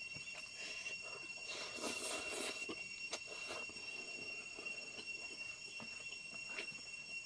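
Close-up chewing and crunching of food, with a louder stretch of crunching about two seconds in and a couple of sharp clicks later, over a steady high-pitched whine.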